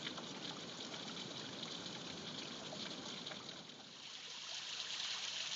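Small waterfall, water sliding down a sloping rock face, rushing in a steady hiss. About four seconds in, the sound dips briefly and comes back a little louder and brighter.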